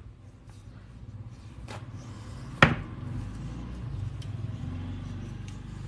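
Small handling sounds at a table: faint rustles and light clicks, with one sharp click about two and a half seconds in, over a low steady hum.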